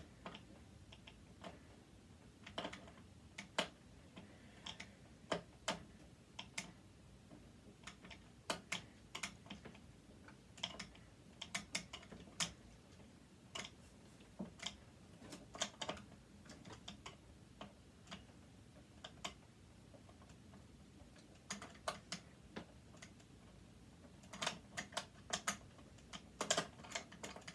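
Irregular small clicks and taps, often in little clusters, from a screwdriver working a stiff screw loose inside a machine, the screw turning slowly.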